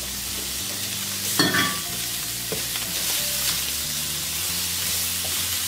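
Sliced Tuscan sausage and minced garlic sizzling steadily in a nonstick frying pan while being stirred with a silicone utensil. There is one brief knock about a second and a half in.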